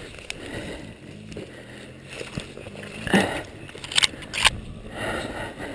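Loose dirt, gravel and dry twigs scraping and crunching under gloved hands and boots as someone scrambles up a steep dirt bank on all fours, with a few sharp cracks from about three seconds in.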